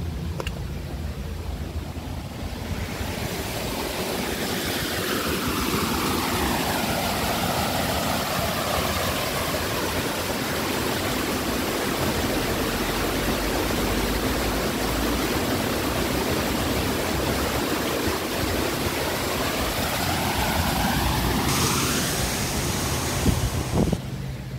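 A long, steady rushing noise of a passing vehicle. Its pitch sweeps down over the first several seconds and back up near the end, and it cuts off suddenly just before the end.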